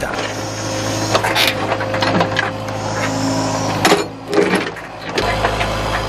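Excavator running steadily under load while its bucket and thumb grip and shift a large boulder, with a steady whine over the engine hum and a couple of sharp knocks.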